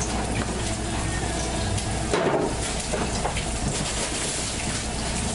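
Minced garlic frying in oil in a frying pan, a steady sizzle, with a brief knock of refrigerator handling about two seconds in.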